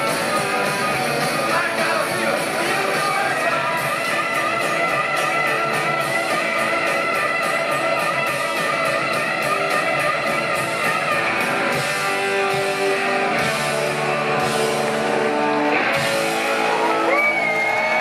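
Rock band playing live in a large hall: electric guitar, drums and vocals, heard from the audience. Near the end, whistles and cheers from the crowd come in over the band.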